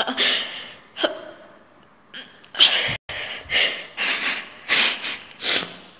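A woman crying without words: a run of short, breathy sobs and sniffs, about eight in six seconds.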